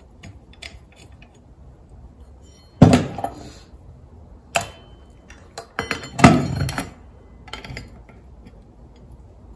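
Steel bolts, nuts and a wrench clinking and knocking against metal parts as the bolts are fitted by hand. There are a handful of sharp metallic knocks, the loudest about three seconds in and again just after six seconds.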